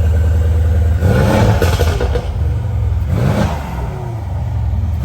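Mercedes-AMG C63 S twin-turbo 4.0-litre V8 idling, then revved twice. The first, longer rev starts about a second in and the second, shorter one about three seconds in; each rises and falls back to idle.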